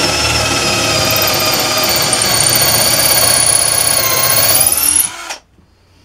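Workzone 12 V cordless drill on high speed, boring a large hole into hard beech. The motor whine sags slightly under load, rises again, then cuts off sharply about five seconds in, as the bit clogs with wood chips.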